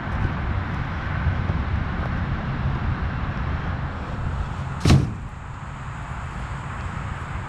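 A small engine running steadily with a low rumble, and one sharp bang about five seconds in, after which the running is a little quieter.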